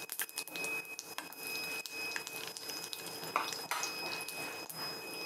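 Slotted steel spatula scraping and clinking against a black kadai as it stirs oil in the pan, in irregular short clicks and scrapes.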